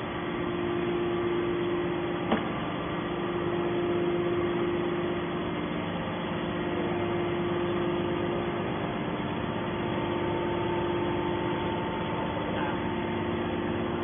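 Hydraulic power unit of a Y81-250 scrap metal baler running without load, a steady hum with several steady tones and one sharp click about two seconds in.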